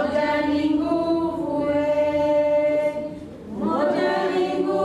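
Group of women singing unaccompanied, with long held notes; the singing dips briefly about three seconds in, then the next phrase begins.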